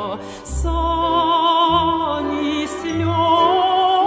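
A woman sings a Ukrainian folk song in long, held notes with wide vibrato, over instrumental accompaniment with a changing bass line. A brief drop in loudness comes just before half a second in, and then a new phrase begins.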